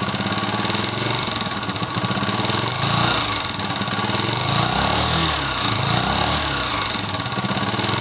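Honda CG125's air-cooled single-cylinder pushrod four-stroke engine idling with its silencer blocked, so its mechanical clatter is heard rather than the exhaust. From about three seconds in it is revved up and down several times, and the noise grows with the throttle. This is the cam noise common on the 2022 model, which the mechanic traces to a vibrating cam pin.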